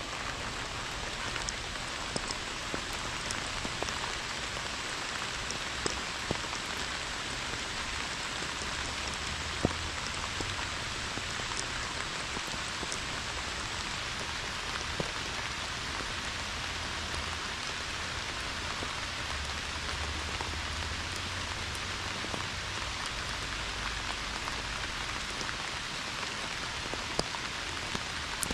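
Pouring rain falling steadily, with scattered sharp ticks of single drops striking close to the microphone; one louder tick comes about a third of the way through.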